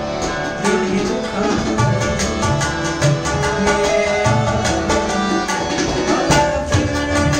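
Live ghazal accompaniment: harmonium and electronic keyboard play the melody in held notes over a steady rhythm of hand-drum strokes.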